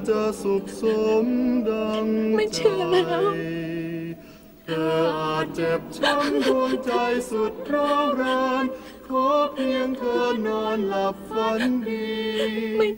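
Film score: a wordless choir sings a slow, sustained melody over soundtrack music, with a brief lull about four seconds in.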